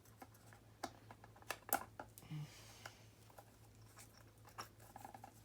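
Scattered small clicks and taps of hands handling wire and parts on an electrical project board, the sharpest a little under two seconds in, over a steady low hum.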